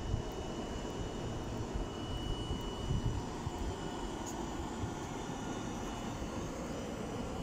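Steady railway-platform background noise: an uneven low rumble under a steady hiss, with a faint thin high whine that fades out about halfway through.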